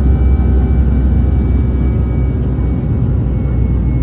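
Airbus A320 airliner in flight, heard from inside the passenger cabin: a steady, loud low rumble of engines and airflow, with a few faint steady tones above it.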